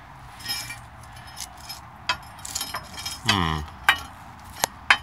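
Hand tools clinking and tapping against the steel steering and frame parts under a truck: several sharp metallic clicks spread through a few seconds.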